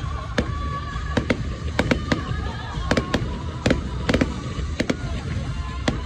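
Fireworks going off in a display: an irregular rapid series of sharp cracks and bangs over a steady low rumble.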